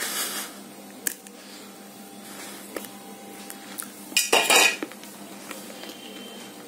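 A piece of roasted multani mitti (fuller's earth clay) being bitten and chewed: a crisp crunch at the start, a few faint clicks, and a second, louder gritty crunch a little past halfway.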